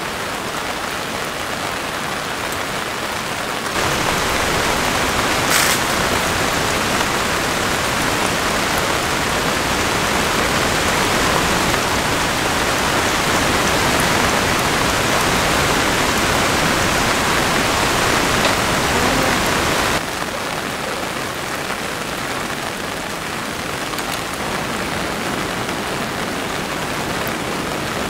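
Steady rain falling on a camping tent and tarp, a dense even hiss. It gets louder about four seconds in and drops back to its earlier level about twenty seconds in.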